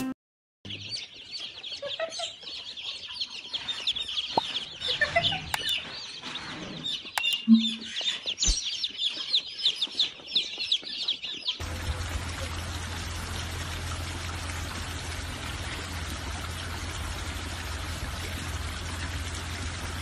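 A crate full of baby chicks peeping: dense, high-pitched cheeping that stops abruptly about 11½ seconds in. It is followed by a steady hiss with a low hum underneath.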